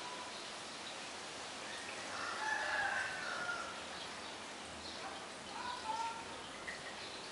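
A rooster crowing in the distance: one long call that rises and then falls, about two seconds in, and a shorter call near the end, over a steady background hiss.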